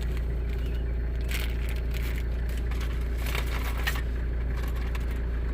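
A few small clicks and crinkles of hands handling small LED bulbs and plastic parts, over a steady low hum.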